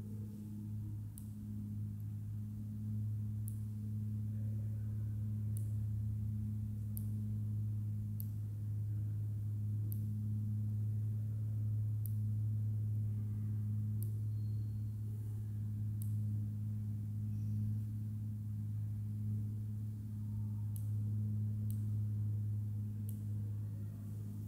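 A steady low-pitched drone with a fainter tone about an octave above it, unchanging throughout, with faint high ticks every second or two.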